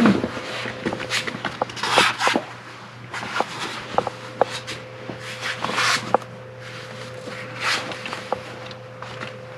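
Scattered rustling and light scratchy clicks of a chinchilla scampering about on a fabric playpen floor and against clothing, over a faint steady hum.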